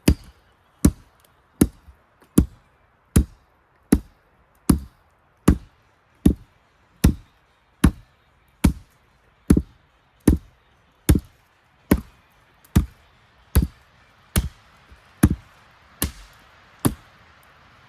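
Firewood being chopped with an axe: a steady run of about twenty sharp chopping strikes, roughly one every 0.8 seconds.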